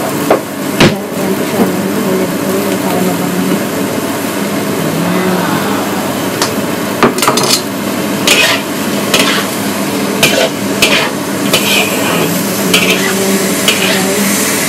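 Food sizzling in a hot wok over a gas burner, while a metal utensil stirs it and knocks and scrapes against the wok many times, most often in the second half. A steady low hum runs underneath.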